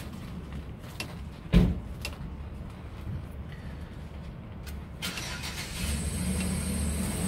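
A truck drive shaft being rocked by hand at a worn universal joint, giving one sharp metallic clunk about a second and a half in and a few lighter clicks; the play in the joint is the cause of the truck's vibration. A steady low engine rumble runs underneath.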